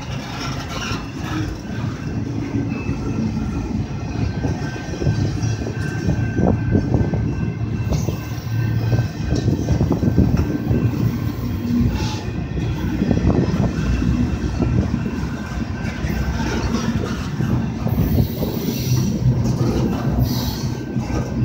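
Double-stack container well cars of a long freight train rolling past: a steady rumble of steel wheels on rail with clatter over the rail joints and occasional knocks.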